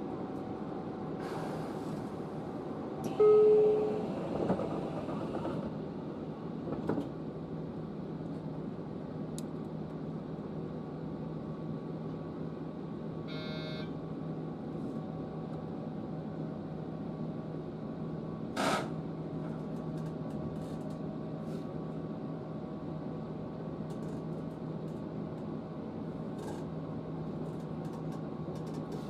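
Steady electrical hum in the cab of a JR Kyushu 811 series electric train. A loud clunk comes a few seconds in as the doors close, a brief beeping tone comes around halfway, and a sharp click comes later.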